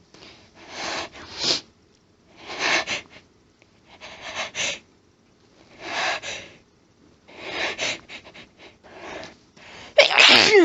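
A person's sneezing fit: about six short, noisy, hitching build-up breaths roughly a second and a half apart, then a loud, harsh, throaty sneeze near the end, driven by a nasal tickle that will not stop.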